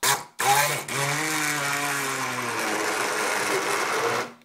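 Hand-held immersion (stick) blender blending a thick fruit smoothie in a plastic beaker: a brief pulse, then a steady run of about four seconds whose motor pitch sags a little under the load, stopping abruptly.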